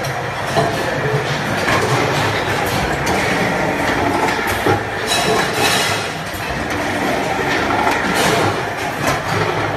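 Metal can production line machinery running: a steady, dense mechanical clatter of conveyors and pressing machines handling steel can bodies, with a few sharp metallic clanks.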